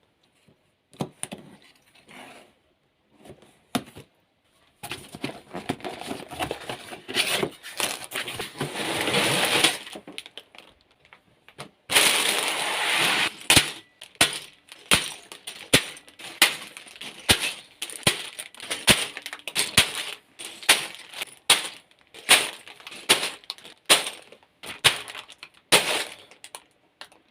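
Loose plastic Lego pieces clattering and clicking as they are handled, with two longer spells of rattling about a third of the way in and near the middle, then many quick separate clicks.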